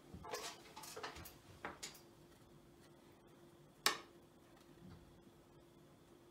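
Rustling and light clicks as a cardboard button whizzer on a string loop is handled and wound up, then a single sharp tap about four seconds in. A faint steady hum runs underneath.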